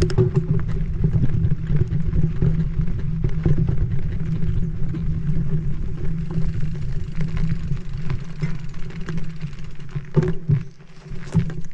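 Marin Mount Vision mountain bike ridden fast down a dirt singletrack: a steady rumble of tyres and rushing air with constant rattling and clatter of the bike over the rough trail. About ten seconds in the rumble dies away as the bike slows to a stop, with a few sharp knocks.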